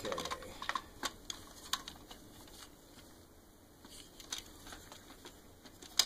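Light, irregular plastic clicks and taps as the Roomba 550's plastic brush-drive gearbox assembly is handled and taken apart, with a sharper click near the end.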